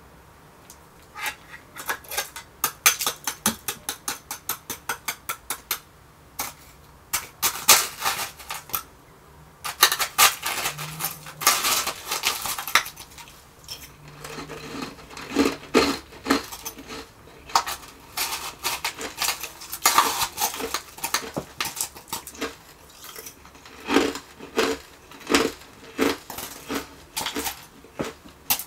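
Metal spoon tapping and scraping in a stainless steel bowl of refrozen shaved ice: first a quick run of even taps, about four a second, then irregular crunching and crackling as the frozen ice is broken up and chewed.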